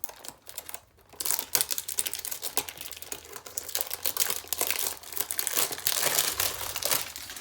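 Plastic wrapping on trading cards being torn open and crumpled: a dense crinkling crackle that starts about a second in and keeps going.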